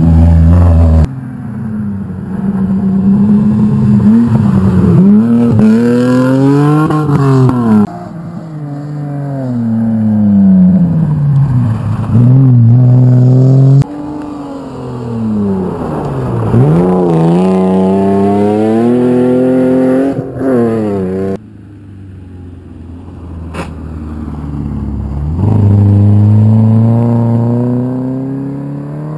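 Rally cars on a gravel stage, one after another, engines revving hard with the pitch rising and falling through gear changes as each brakes into the corner and accelerates away. Each car's sound breaks off abruptly before the next.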